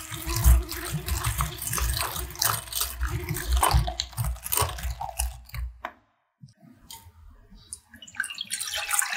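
Small battery-powered handheld electric whisk running in egg yolks and sugar, a steady motor hum with the wire whisk clicking and sloshing against the glass bowl; it stops about six seconds in. Near the end, milk is poured splashing into a stainless steel saucepan.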